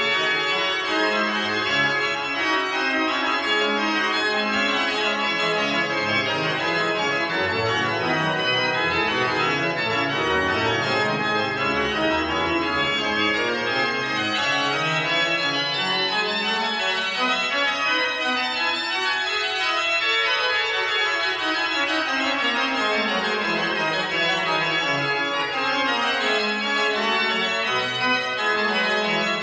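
The historic Holzhey pipe organ playing a dense, full passage at a steady loudness, with inner and bass lines sweeping down and back up beneath sustained upper voices.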